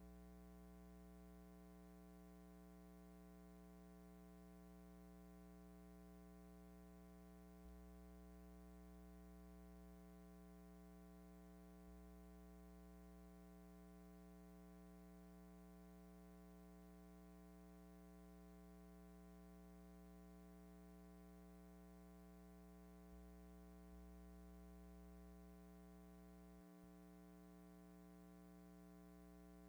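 Near silence: only a faint, steady electrical hum on an otherwise blank soundtrack.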